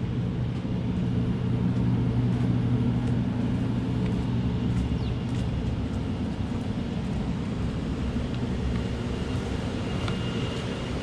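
A motor running steadily at an even speed: a low, unchanging hum.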